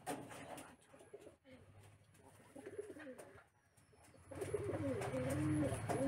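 Pigeon cooing: low, wavering coos, faint at first, then louder and more continuous from about four seconds in.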